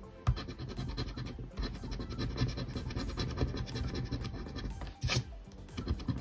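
A coin scratching the latex coating off a scratch-off lottery ticket in rapid, continuous strokes, with a sharper click just after the start and another about five seconds in.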